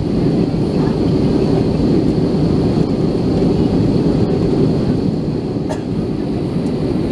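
Steady low rumble of an Airbus A321 airliner with CFM56-5B engines, heard inside the passenger cabin, with a couple of faint clicks.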